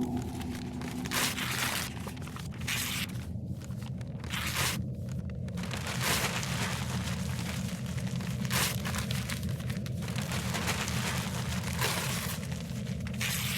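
Cartoon sound effect of a bookworm munching books: paper crunching and tearing in repeated bursts of uneven length, over a steady low hum.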